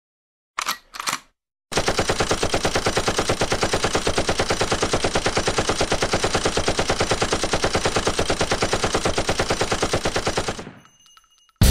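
Automatic gunfire: a machine gun firing one long, unbroken string of rapid, even shots for about nine seconds, then fading out. Two short sounds come just before the string starts.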